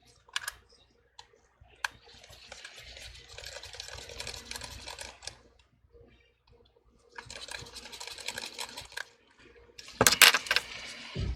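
Rapid light tapping and clicking in two runs of a few seconds each, with single clicks before them and a few louder clicks near the end: fingertips tapping across a freshly replaced iPhone 12 touchscreen to test that it responds.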